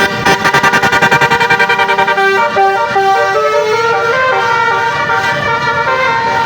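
Tour bus's 'basuri' telolet horn, a multi-tone musical air horn, playing a melody. The first two seconds are rapid fluttering notes, then a run of held notes stepping up and down in pitch.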